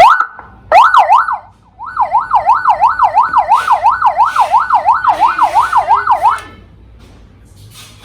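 Electronic police-style siren from a TBD 2000L siren module kit, sounding a rapid up-and-down yelp at about three to four sweeps a second. It gives a short burst and a couple of sweeps at first, then runs steadily and cuts off about six seconds in.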